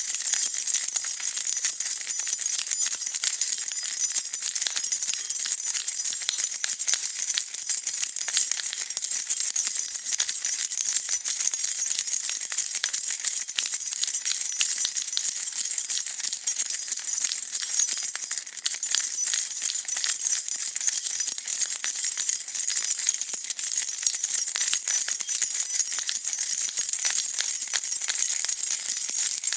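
A bunch of metal keys jingling continuously: dense, bright metallic clinking at a steady level with no pauses.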